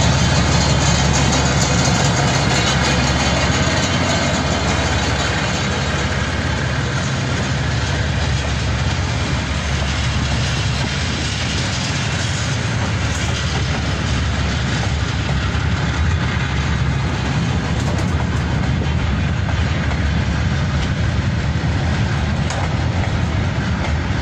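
KiwiRail freight train passing close by: diesel-electric locomotives' engines running, then container wagons rolling past on the rails. The engine sound is loudest in the first few seconds and eases a little as the locomotives go by and the wagons follow.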